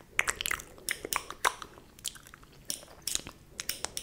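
Close-miked ASMR mouth sounds: irregular wet clicks and smacks of lips and tongue, several to the second.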